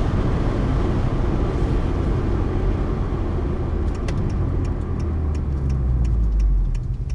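Cabin noise of a 2018 Honda Accord 2.0T slowing down: road and engine noise fading as the car coasts down through the gears. About four seconds in, a regular ticking starts, two to three ticks a second.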